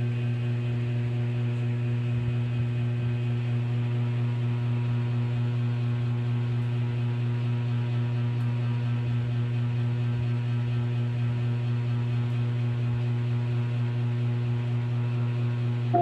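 Mabuhay Star ceiling fan running with a steady low electrical hum and fainter higher overtones, unchanging throughout.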